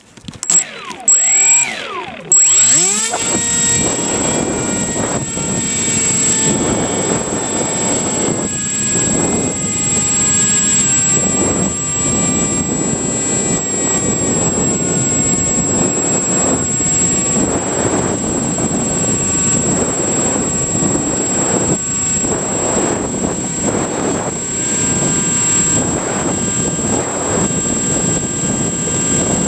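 The electric motor and pusher propeller of an EasyStar foam RC plane spin up with a rising whine about two seconds in, after a few knocks. They then run steadily with a buzzing drone and rushing air noise, over a constant thin high-pitched tone.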